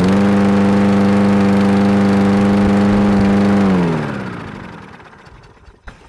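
Lawn mower starting up and running at a steady pitch, then shut off about four seconds in, its pitch falling as it winds down to a stop.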